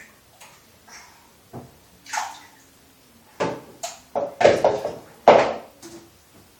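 Bathwater splashing and sloshing in a string of short bursts as a toddler plays with a plastic rinse cup in the tub, with the cup knocking about. The loudest splashes come in the second half.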